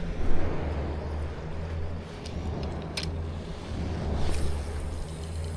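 A steady low rumble with a few short clicks over it, the sharpest about three seconds in.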